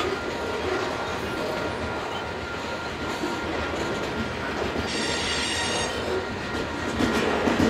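Loaded covered hopper cars of a long freight grain train rolling past close by, a steady rumble and clatter of wheels on rail, with a brief high-pitched squeal about five seconds in.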